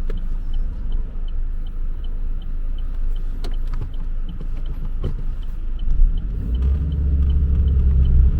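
Vauxhall Insignia 1.4 Turbo's petrol four-cylinder engine running as the car drives, with a steady rumble and about three light ticks a second, like a turn indicator clicking. About six and a half seconds in the engine gets louder as it is put under load.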